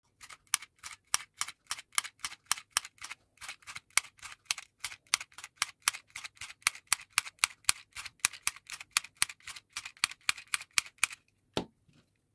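Hand-held mini stapler-style sewing machine clicking sharply with each squeeze as it stitches along a fabric hem, about three to four stitches a second in an even rhythm. The clicking stops shortly before the end, followed by a single duller knock.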